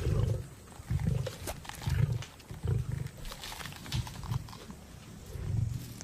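Lions growling in a series of short, low growls while feeding on a fresh reedbuck kill.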